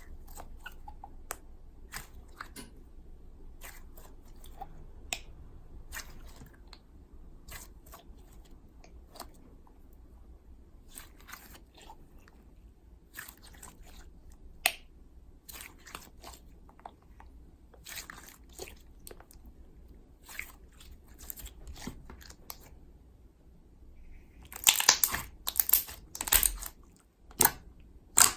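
Slime being kneaded by hand, making scattered sharp clicks and pops as air pockets in it burst. Near the end comes a run of louder pops in quick succession.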